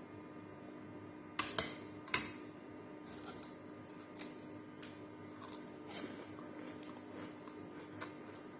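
Metal cutlery clinking against a glass bowl: three sharp clinks with a short ring about a second and a half to two seconds in, then softer scattered taps and scrapes of cutlery over a steady low hum.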